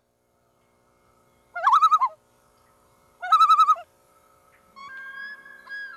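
A bird calling: two loud wavering, trilled calls about a second and a half apart, then a fainter, longer steady whistled call near the end.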